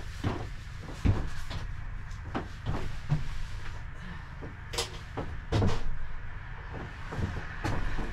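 Irregular knocks, scuffs and rustles of someone moving about and handling things, with a low rumble underneath.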